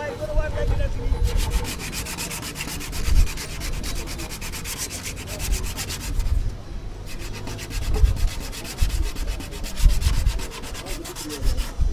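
Sandpaper rubbed by hand over a carved wooden djembe shell in rapid back-and-forth strokes, pausing briefly about six seconds in, with occasional dull low thumps.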